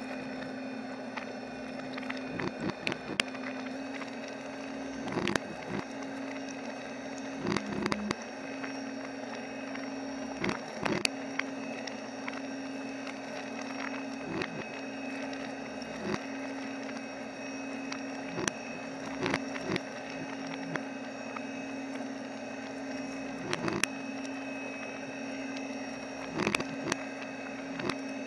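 A machine runs steadily with a constant low hum while the sculpture's loose pieces, tossed about inside a stainless-steel drum, click and knock against it at irregular intervals, now singly, now several in quick succession.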